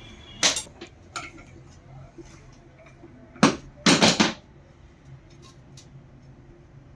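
Metal parts being handled and knocked together, clanking. There are two sharp clanks in the first second or so, then a louder clatter of several knocks about three and a half to four and a half seconds in, with light ticks between.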